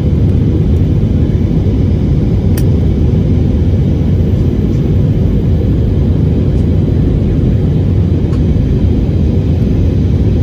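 Airbus A320-200 jet engines heard from inside the passenger cabin during the climb after takeoff: a loud, steady, low rumble.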